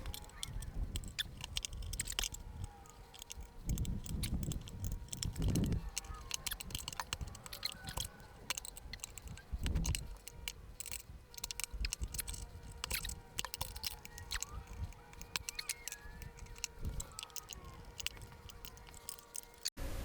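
Motorcycle tire's lubed rubber bead being forced over the wheel rim: scattered clicks and squishing of rubber on metal, with a few low thumps about four, five and ten seconds in.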